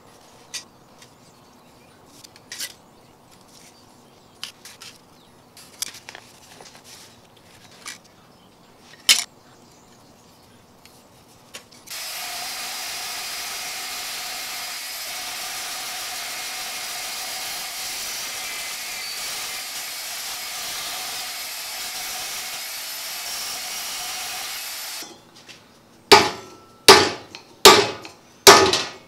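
A few light metal clicks and taps from handling sheet metal. Then a portable band saw cuts thin sheet metal with a steady sound for about thirteen seconds and stops suddenly. Near the end come about five sharp, loud hammer blows on a sheet-metal tab clamped in a bench vise, bending it over.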